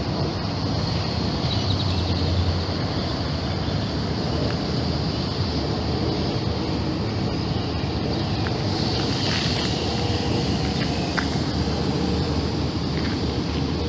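Steady outdoor background noise: a low rumble with hiss, the kind of steady noise distant traffic or wind makes, with a few faint ticks and a brief swell of hiss about nine seconds in.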